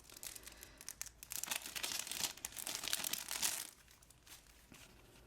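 Packaging crinkling and rustling as it is handled and unwrapped, busiest from about a second in until near the end, then quieter.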